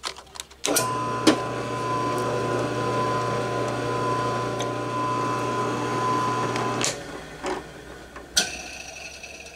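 Benchtop drill press starting up and running steadily for about six seconds while drilling a hole through a small piece of clear plastic, then switched off and winding down. A few sharp clicks at the start and two knocks near the end.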